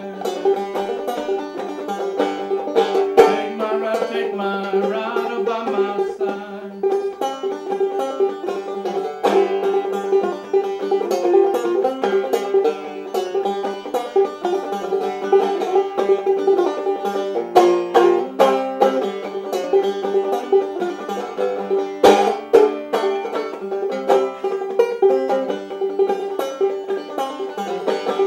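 Five-string banjo played solo in a downstroke knock-down style, clawhammer-like: a continuous stream of struck notes over one steady ringing drone note.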